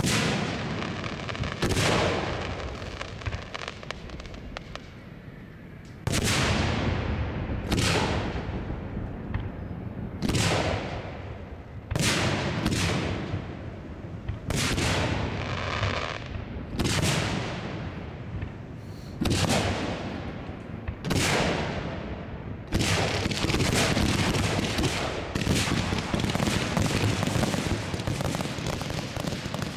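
Aerial firework shells bursting, a dozen or so booms a second or two apart, each trailing off in a rumble. About three-quarters of the way through they run together into a dense, continuous barrage of bursts.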